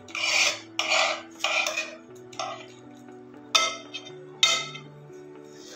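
A spoon scrapes thick curry out of a kadai into a serving bowl: three scraping strokes in the first two seconds, then two sharp clinks of the spoon against the pan. Soft background music with held notes plays underneath.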